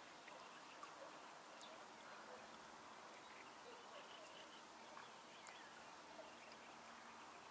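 Near silence: faint outdoor hiss with a few scattered, faint distant bird chirps.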